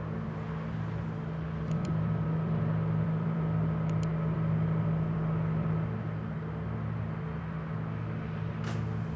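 Steady low droning hum with a faint high whine above it. A computer mouse is double-clicked twice, about two seconds apart.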